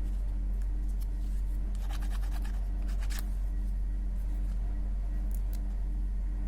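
Crackling and sharp clicks of candy packaging being handled or cut, bunched together about two to three seconds in with a few more later. Under it runs a steady low electrical hum with a faint tone that pulses about twice a second.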